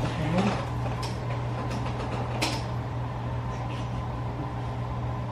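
Steady low electrical hum, with a brief murmur of a voice just after the start and a single sharp click about two and a half seconds in.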